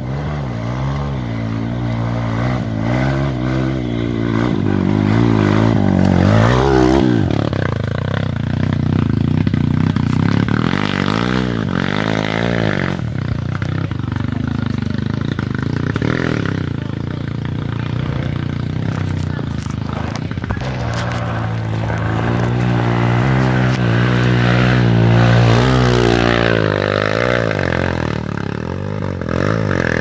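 Trail motorcycle engine riding a rough dirt track, its pitch rising and falling again and again as the throttle is opened and closed.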